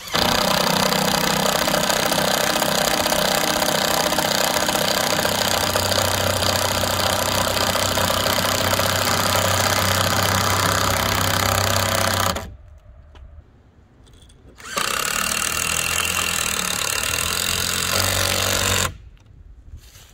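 A loud motor-driven machine running steadily, stopping for about two seconds after roughly twelve seconds, then running again for about four seconds before cutting off.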